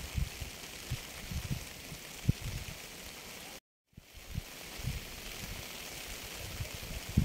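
Recorded rain ambience: a steady wash of water noise with irregular low thumps, cutting out completely for a split second a little past halfway.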